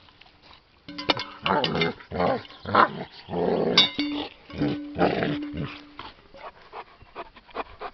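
German Shepherd growling in a string of rough bursts as it bites and shakes a padded object, with a few sharp clinks of its metal chain; the growling dies down about six seconds in.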